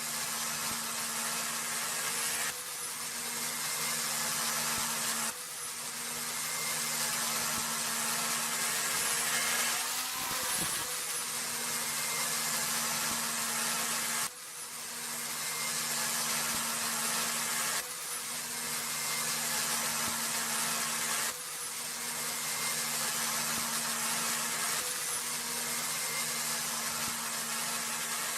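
An electric power tool running steadily, its motor hum under a broad hiss as it works the material. Abrupt jumps in the sound every three or four seconds.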